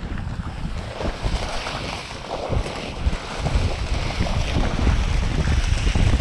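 Snowboard sliding through powder snow, a steady hiss, with wind buffeting the microphone in a low rumble.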